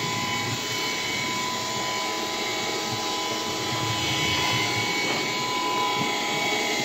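Bissell PowerGlide cordless stick vacuum running on low power with its brush roll off: a steady motor whine over rushing suction air as it picks dirt out of the cracks in a hard floor.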